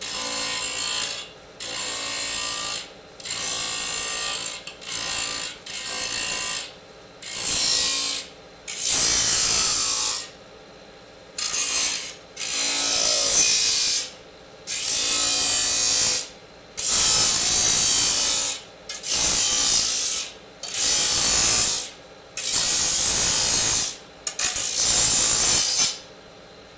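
Disc saw cutting aluminium: a high, harsh metal-cutting noise in repeated cuts of one to two seconds each, about sixteen of them, separated by short pauses.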